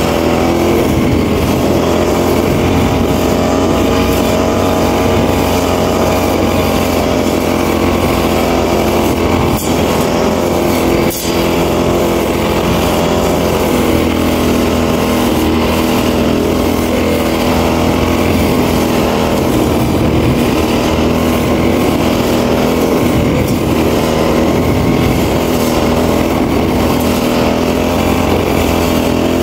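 Brush cutter (kusakari-ki) engine running steadily while cutting grass, with one brief dip and a click about eleven seconds in.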